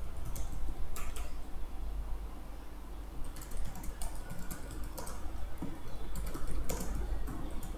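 Typing on a computer keyboard: a run of irregular keystroke clicks as a sentence is entered, over a steady low hum.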